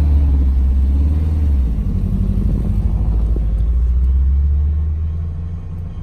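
A car engine running with a deep, steady low rumble that eases off about five seconds in.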